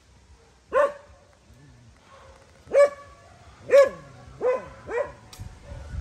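Five short, loud animal calls with falling tails, at first a second or two apart and then quicker, the last three in close succession.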